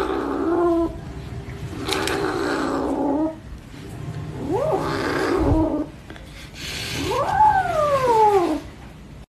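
Calico kitten growling and yowling over its food in four long, rising and falling calls: food-guarding, a warning at a hand reaching for its meal.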